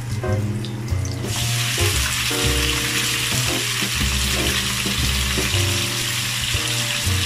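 Raw chicken pieces going into hot oil in a wok. A loud, steady frying sizzle starts suddenly about a second in and keeps going.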